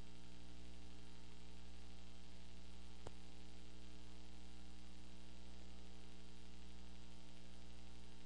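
Steady electrical mains hum with hiss from the recording system, and one faint click about three seconds in.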